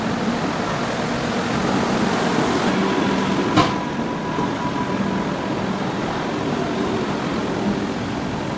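Indian Railways passenger train rolling slowly past the platform as it departs, a steady rumble of coaches and wheels with a faint thin whine. A single sharp clack sounds about three and a half seconds in.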